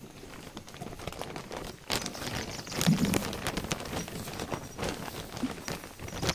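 Irregular rustling and soft clicking close to the microphone as a baby shifts about on a blanket beside it, growing busier about two seconds in.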